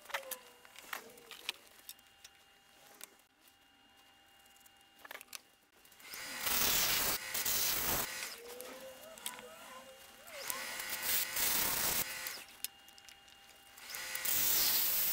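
A tool is worked against the inside of a small wooden box spinning on a wood lathe. The first stretch is quieter with a few clicks. Then come three loud bursts of cutting or rubbing noise, each a second or two long: about six seconds in, again around ten and a half seconds, and near the end.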